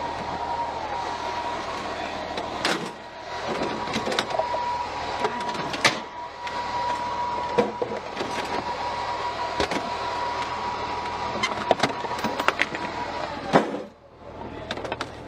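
Armored vehicle running, a steady high whine over a noisy rumble, with several sharp knocks or bangs scattered through. The whine cuts off near the end and the noise drops away.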